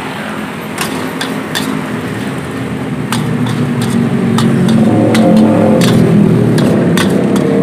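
Metal spatula clanking irregularly against a wok while fried rice is stir-fried, over the steady rumble of a high-flame gas burner that grows louder about four seconds in.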